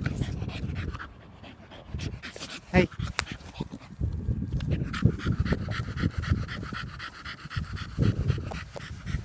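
Dog panting rapidly and steadily through its open mouth, with a short pitched sound about three seconds in.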